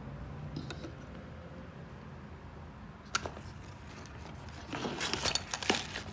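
Small objects being handled: a sharp click about three seconds in, then about a second of rustling and clinking near the end, over a faint steady hum.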